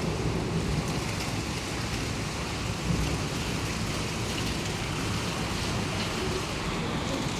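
Heavy rain pouring steadily, with a low, fluctuating rumble of wind buffeting the microphone underneath.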